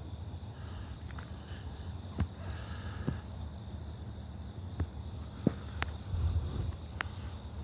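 Crickets chirping in a steady night chorus, with several sharp clicks of handling noise on top.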